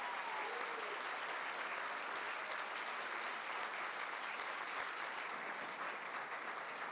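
Audience applauding, a steady wash of many hands clapping that keeps an even level.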